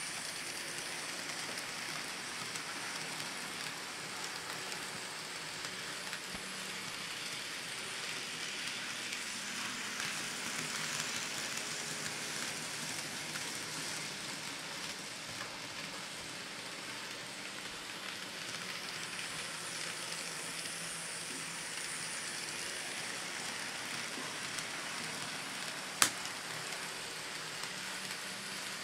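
N scale model diesel locomotive and coal hoppers running on the track, a steady hiss-like whir of small wheels on rail and the motor, with a faint hum. One sharp click comes near the end.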